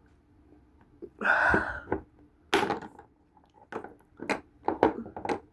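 Handling noises from taking apart a phone: a short rustling scrape about a second in, then a string of sharp clicks and taps as tools and the phone are picked up and set down.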